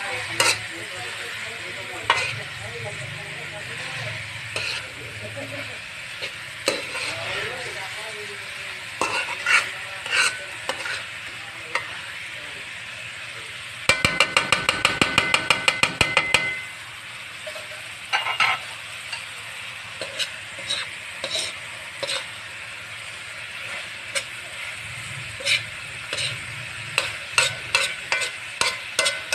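A metal spoon stirring and scraping a banana blossom sauté in an aluminium wok, with a steady sizzle and scattered sharp scrapes and taps against the pan. About halfway through there is a quick run of sharp metallic clicks, about seven a second, lasting a couple of seconds.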